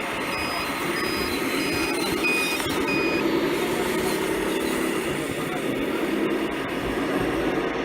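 Electronic reversing beeper of a scale RC truck: about six high beeps a little over half a second apart that stop about three seconds in, over a continuous low engine-like drone.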